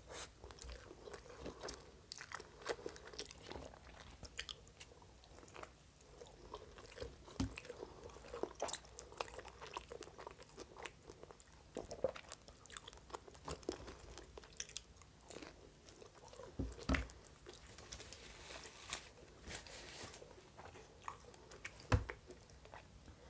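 Close-miked chewing of pizza, faint and wet, with small irregular mouth clicks and crunches. Near the end there is one sharper knock.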